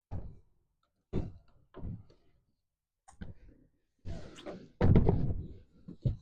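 A heavy car seat thumping and knocking against the car's body and floor as it is manoeuvred into place: about seven separate dull thuds, the loudest a little under five seconds in.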